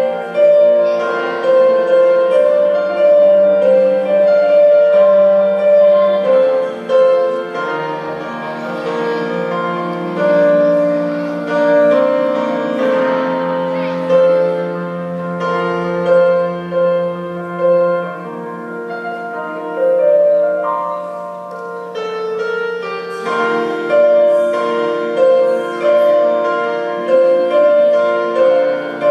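Instrumental music led by piano, a flowing melody over held low notes.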